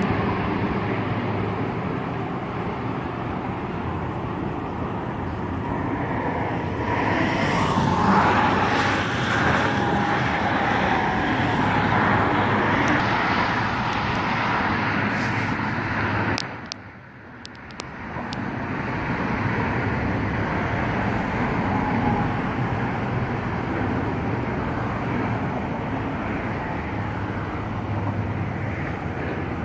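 Steady outdoor noise of road traffic going by, with a louder vehicle passing about seven to twelve seconds in. The noise drops away briefly about seventeen seconds in, then resumes.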